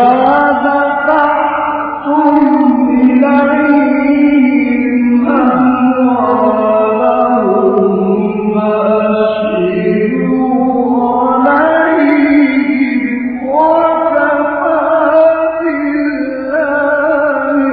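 Male Quran reciter chanting in the melodic mujawwad style: long ornamented phrases held for several seconds each, with short breaks between them.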